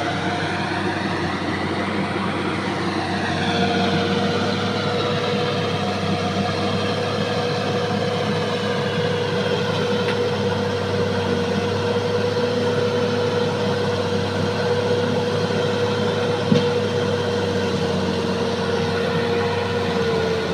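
Bulldozer's diesel engine running, its note rising and falling over the first few seconds and then holding steady, with a steady whine on top.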